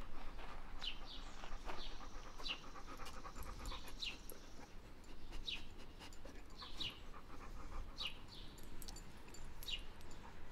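A black Labrador panting softly while being petted. Over it, a small bird gives short, falling chirps every second or so.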